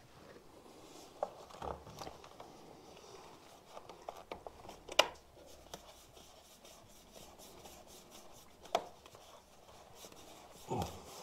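Quiet handling of plastic pipe and fittings: rubbing and scraping with a few sharp clicks, the loudest about halfway through, and a duller knock near the end.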